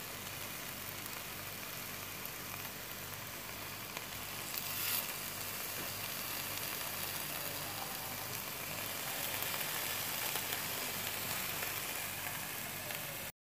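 Marinated chicken and vegetable skewers sizzling on a hot ridged grill pan: a steady frying hiss that swells briefly about five seconds in. It cuts off suddenly near the end.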